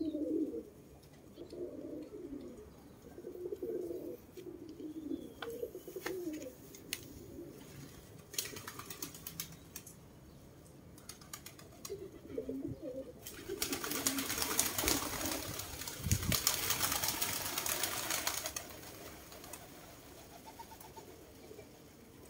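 Domestic fancy pigeons cooing, low warbling coos repeated over and over. Partway through comes a loud burst of rustling noise lasting about five seconds.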